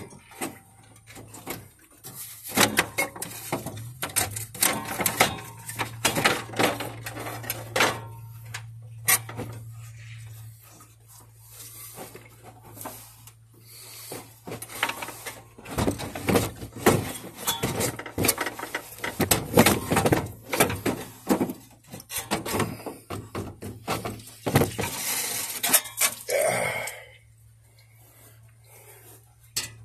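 Irregular clanking, knocking and rattling of hand tools and metal parts while a pickup's radiator and fan shroud are worked loose and pulled out. A low steady hum underneath drops away about ten seconds in.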